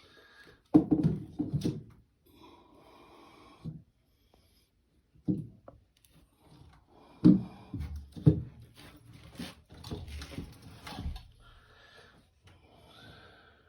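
Irregular knocks and clunks of washing-machine parts and tools being handled and fitted, loudest in a cluster about a second in and again around seven to eight seconds, with quieter handling noise between.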